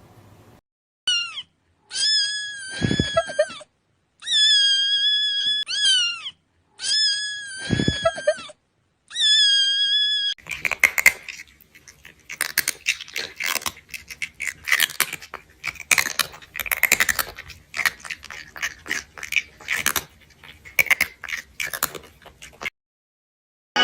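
Five long, high-pitched cat meows, each a second or two long. They are followed by about twelve seconds of dense, rapid crackling and clattering noises.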